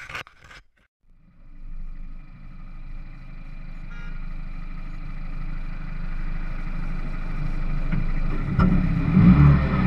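Engine of an R56 Mini Cooper S (turbocharged 1.6-litre four-cylinder) heard through a camera on the hood. It runs steadily and grows slowly louder, then jumps in level near the end as the throttle opens and the car pulls away.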